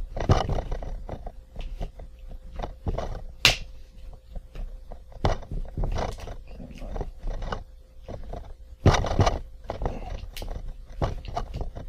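Plastic clicks, snaps and scraping as a laptop's screen bezel is pried loose around its clips with a comb, including one sharp snap a few seconds in and a louder scraping rustle near the end.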